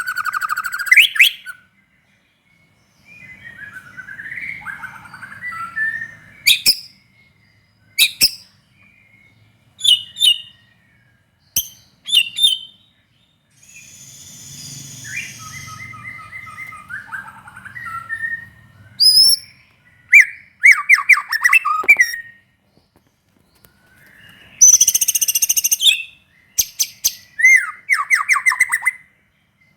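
White-rumped shama (murai batu) in full song: a string of short, varied phrases of clear whistles, fast trills and sweeping notes with brief pauses between them, and a harsh, buzzy call about 25 seconds in.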